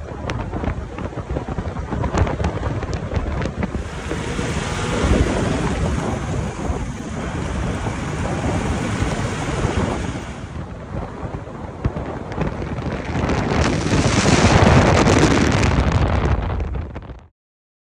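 Wind buffeting the microphone from a vehicle moving along an unsealed dirt road, over its tyre and road noise, with scattered clicks; the noise swells near the end and cuts off suddenly.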